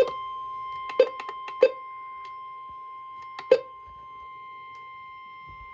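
Weather alert radio giving a faint steady high tone, with several sharp clicks of the set being handled. The four loudest clicks come at the start, about a second in, just after that, and about three and a half seconds in.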